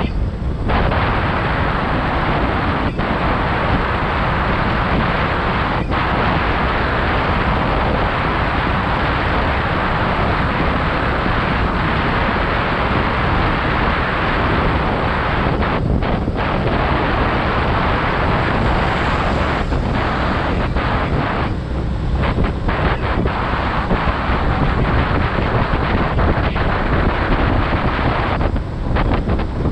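Wind rushing over the microphone of a motorcycle-mounted camera at riding speed, mixed with the motorcycle's engine and road noise. It runs steadily, with a few brief dips.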